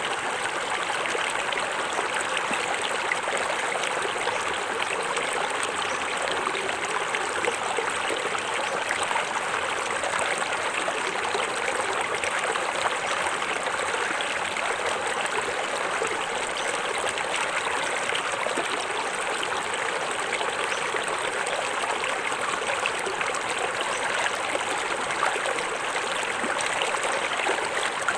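Small forest waterfall splashing and running steadily into a stream, an even rush of water with no breaks.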